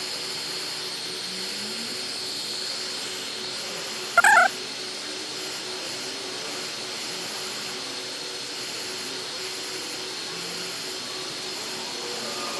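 Hot-air tool blowing steadily as it heats the iPad's screen glass to soften the adhesive; it cuts off near the end. About four seconds in, one short, loud, high-pitched cry stands out above it.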